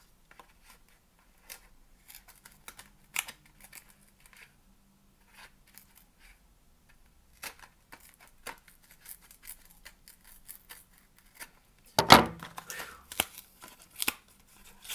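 A small paperboard pod box being cut and torn open with a kitchen knife: scattered scratches, slicing strokes and paper rustling, with a louder stretch of tearing and rustling near the end.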